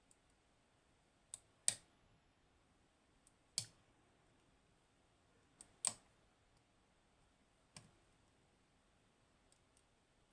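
Sharp metallic clicks every couple of seconds from a pick and tension tool working the pin stacks of a Hori Trident lock, whose pins have T-spool drivers. Several clicks come with a fainter click just before them.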